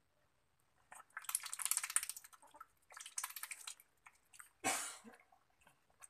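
Ducks dabbling in a steel bowl of watery feed: their bills chatter and slurp through the liquid in two bursts of rapid clicks, with one louder wet slurp about two-thirds through.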